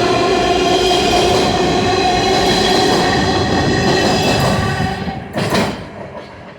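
R143 subway train taking off, its traction motors giving a steady whine over the running noise of the cars. A brief clatter comes about five seconds in, and then the sound falls away.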